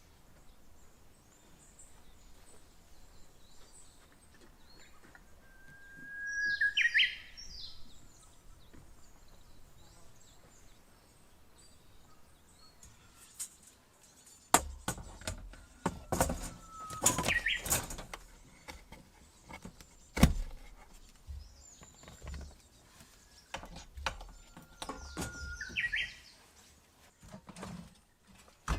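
A songbird sings twice, each time a held whistled note that jumps up into a quick run of higher notes. From about halfway there is an irregular run of sharp clicks and knocks.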